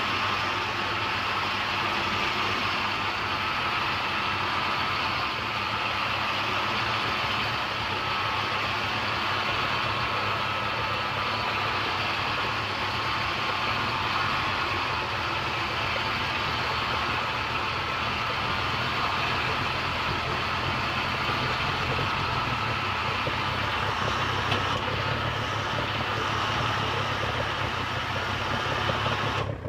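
An engine idling steadily with an even, unbroken drone that cuts off suddenly at the end.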